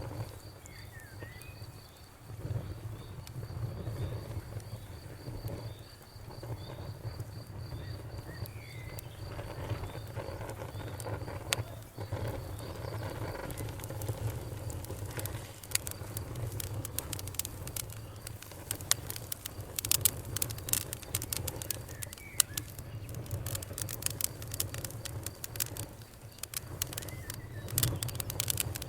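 Campfire crackling and popping over a low rumble from the flames, the crackles growing much denser in the second half. A fast, regular high chirping runs through the first twelve seconds or so, and a few birds chirp now and then.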